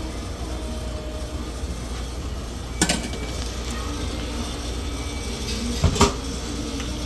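Dining-room background with a steady low hum, cut twice by sharp knocks of tableware: once about three seconds in, and a quick double knock near six seconds.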